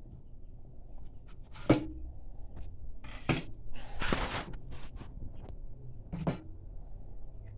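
Handling noises from cleaning a porcupinefish on a cutting board: a few sharp knocks, the loudest about two seconds in, and a short scraping rustle in the middle as the meat is worked out of the spiny skin.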